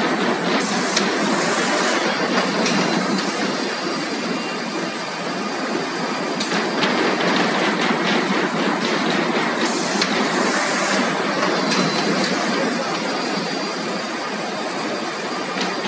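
PVC gypsum board laminating line running, a steady mechanical din. A high hiss of about a second sounds twice, near the start and again about ten seconds in, and a few sharp clicks are scattered through it.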